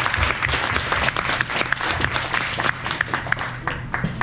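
A roomful of people applauding, many hands clapping at once, thinning out near the end.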